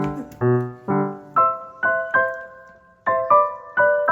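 Background music: a gentle piano melody of single struck notes, about two a second, each ringing and fading.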